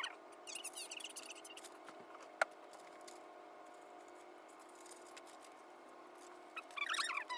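Talk sped up to eight times normal speed, turned into fast, high-pitched squeaky chirps, in short spurts just after the start and again near the end. There is one sharp click about two and a half seconds in, over a steady hum.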